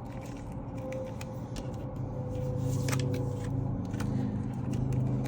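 A steady low mechanical hum that grows a little louder about two seconds in, with a few small clicks and taps over it.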